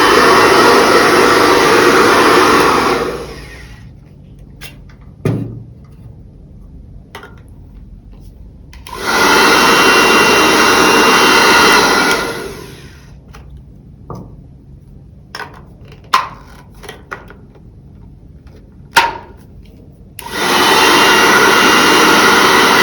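Professional salon hair dryer with an AC motor blowing in three bursts of three to four seconds each, switched on and off. Scattered clicks and knocks of handling come in the quiet gaps between.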